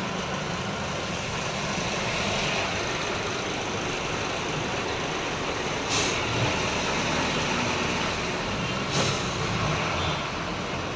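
Steady engine and road noise heard from inside a truck's cab as it moves slowly on a wet road, with two short sharp clacks about six and nine seconds in.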